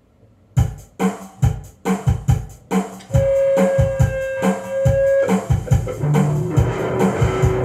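Electric bass guitar played along to a band recording of drums and guitars. The song opens with loud stop-start hits about twice a second, then about three seconds in the full band comes in with a long held high note.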